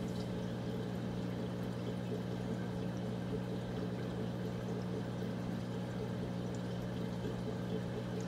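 Steady hum and water flow of a Fluval Evo saltwater reef aquarium's circulation pump, with water pouring and trickling through the filtration.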